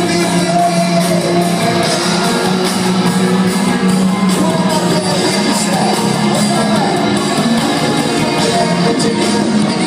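Live band music with a singer, heard from the audience in a large arena hall: drums, bass and vocals playing continuously.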